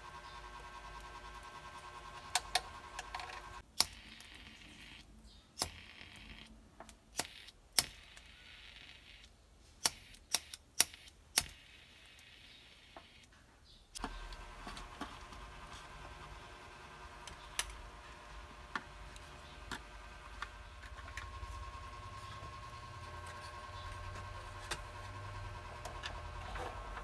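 Scattered sharp clicks and taps from hands handling wires and the plastic casing of an emergency light, over a faint steady hum. The clicks come irregularly, several close together in the middle.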